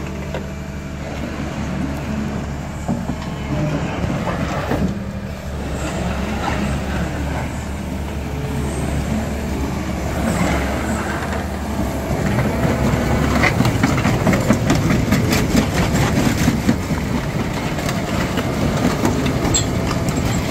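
Volvo EC300EL crawler excavator's diesel engine idling steadily, with a run of rapid clicking or crunching noises in the second half.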